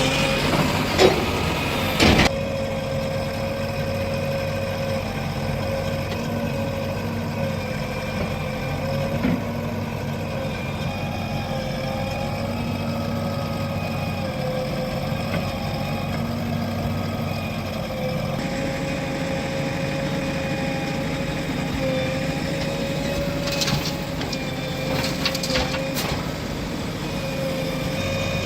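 JCB 3DX backhoe loader's diesel engine running steadily at an even speed. A couple of sharp knocks come in the first two seconds, and a few more clicks and knocks come near the end.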